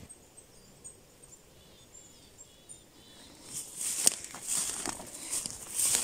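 Footsteps crunching through dry fallen leaves and brush, starting about three and a half seconds in. Before that the forest is quiet apart from faint high bird chirps.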